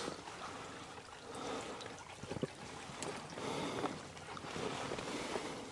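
Faint water trickling, with a few light knocks.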